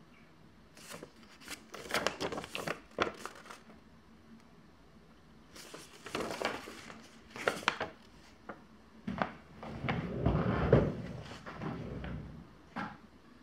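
Handling noises: rustling and light knocks in three irregular bursts, with a duller, heavier rumble about ten seconds in.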